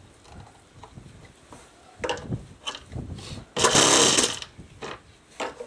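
Attempts to start a Saito FA-65 four-stroke glow engine on a model plane: an electric starter spins it in short whirring bursts, the longest about a second just past the middle and a shorter one near the end, without the engine catching and running.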